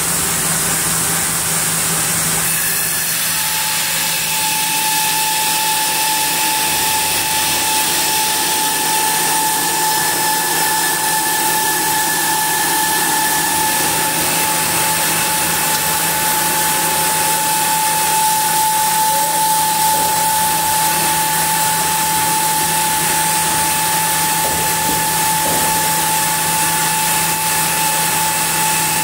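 Sawmill band saw running a lengthwise cut through a large camphor log as the carriage feeds the log past the blade. The sound changes about two and a half seconds in, then holds steady with a clear high tone over the cutting noise.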